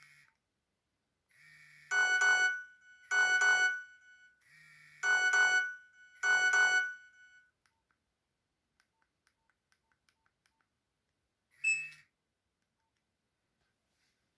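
Nokia 1600 ringtone playing from the phone's small speaker: two pairs of short electronic rings, like a telephone's double ring, after which it stops. A few faint clicks follow, then one short beep near the end.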